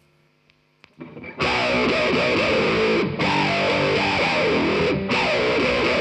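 Electric guitar played through distortion and effects over the PA, a different sound patch on request. A few faint notes come first, then it comes in loud about a second and a half in, with brief breaks about every two seconds.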